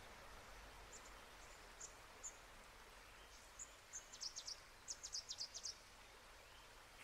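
Cicadabird calling: a few separate high, sharp notes, then two quick runs of about six notes each a little past the middle, faint over a steady background hiss.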